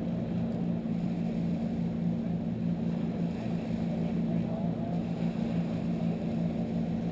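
A motorboat's engine running steadily with an even low hum.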